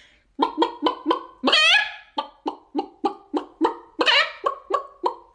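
A person imitating a chicken with their voice: a rapid run of short clucks, about four a second, broken twice by a longer drawn-out squawk.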